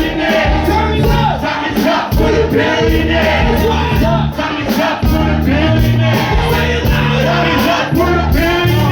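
Live band music with a steady bass line and voices singing over it, with crowd noise.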